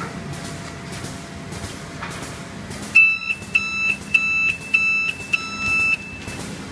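An electronic buzzer beeps five times at a high pitch, about 0.6 s apart, starting about halfway through, with the last beep trailing off a little longer. Under it runs the steady noise of a running three-side-seal bag-making machine, with faint regular clicks.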